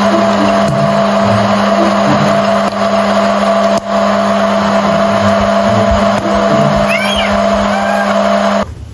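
Hot-air popcorn maker running: its fan motor makes a loud, steady rush of blowing air with a steady hum, and it cuts off suddenly near the end.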